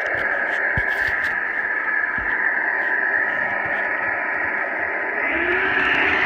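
Running noise of a Metro-North train: a steady, thin hiss with faint clicks. About five seconds in, a steady hum joins and it grows a little louder.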